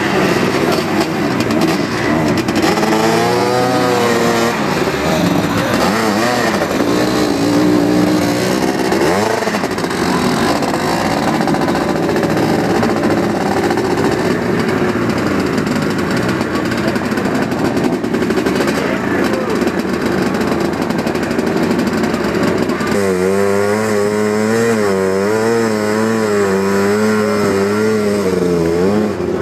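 Sidecar motocross engines revving hard, their pitch rising and falling over and over as a rig struggles in deep mud.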